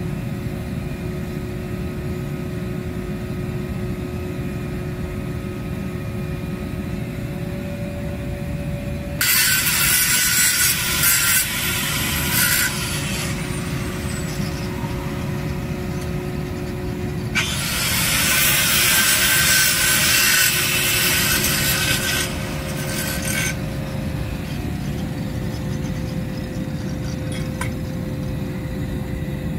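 Handheld angle grinder grinding on a steel pipe joint in two bursts, the first about three seconds long starting about nine seconds in, the second about six seconds long. A steady low hum of running machinery carries on underneath.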